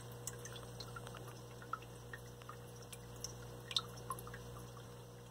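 Steady low hum with faint, irregular water drips and plinks scattered through it.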